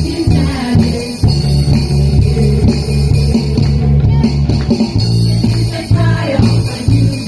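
A church worship band playing with singers: a strong bass line moving in a steady beat under the voices.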